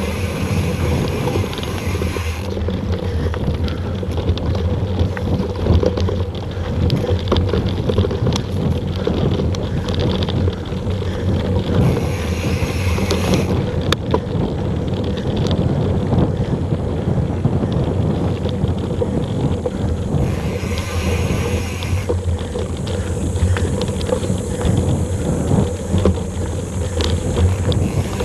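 Mountain bike ridden fast over a dry dirt trail: wind rushing over the action camera's microphone, with a steady rumble and frequent small rattles and knocks from the bumpy ground. A higher buzz comes and goes three times, near the start, about halfway and about three quarters of the way through.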